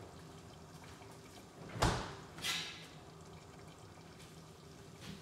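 Kitchen handling sounds over a faint steady hum: one sharp knock about two seconds in, then a short hiss about half a second later.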